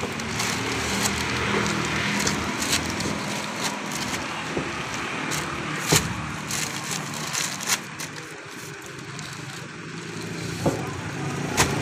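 Paper cement sacks thumping at irregular intervals as they are lifted and dropped onto a stack, with papery rustling and scraping between, over a steady low engine hum.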